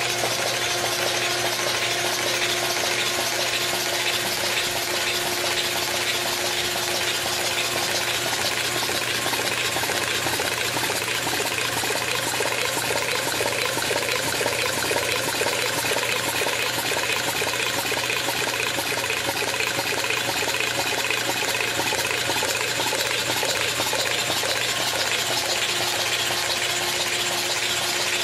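Big block Chevrolet 496 stroker engine being turned over steadily by a Simtester, running without firing, with oil spraying from the lifter oil squirters and splashing through the valley as it circulates to the hydraulic roller lifters. A steady mechanical whir with a hum under the wet hiss of the oil.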